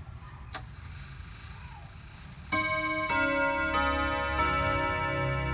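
Antique clock's eight-hammer, eight-rod gong chime starting to play its tune about two and a half seconds in, the hammers striking the rods one after another about every two-thirds of a second, each note ringing on under the next. Before it, a single click and the clock's ticking.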